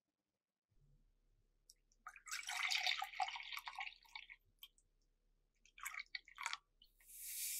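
Whole milk poured into a glass measuring cup: a liquid pour in two spells, the first the longer, followed by a short hiss near the end.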